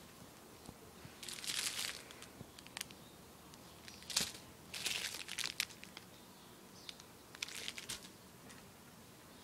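Crinkling and rustling of something being handled, in three short bouts about a second and a half, five and seven and a half seconds in, with a sharp click about four seconds in.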